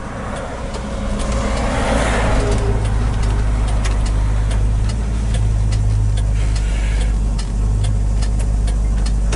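1972 Ford F100's 360 V8 running under way, heard inside the cab as a steady low rumble that grows louder about a second in as the truck pulls ahead. A turn-signal flasher clicks steadily over it.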